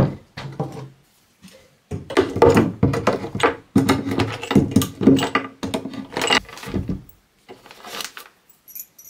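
A wooden board set down with a knock, then several seconds of clattering knocks, clicks and scraping as a dried rabbit skin is pulled free of the nails pinning it to the board.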